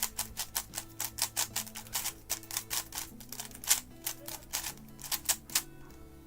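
Gan 11 Air non-magnetic 3x3 speedcube being turned quickly by hand: a rapid run of sharp plastic clicks, about six a second, that stops near the end. Faint steady background music underneath.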